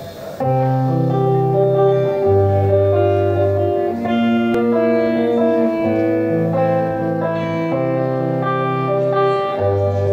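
Live rock band playing a song, the music starting about half a second in with sustained chords over bass notes that change every second or two.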